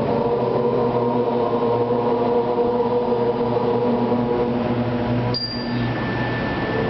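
A steady drone held on one low pitch with many overtones. About five seconds in, a single sharp ping rings briefly, like a small metal bell or chime struck once.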